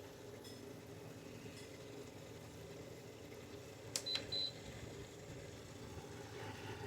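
LG 6,000 BTU window air conditioner running with a faint steady hum; about four seconds in, a click and two short high beeps from its control panel as a button is pressed.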